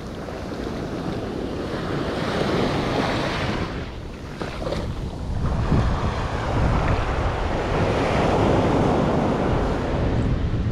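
Small shore-break waves washing up and over the sand, the wash swelling twice, with wind buffeting the microphone.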